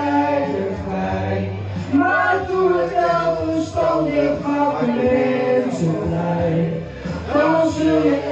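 A man singing over backing music: long sung notes above a steady bass.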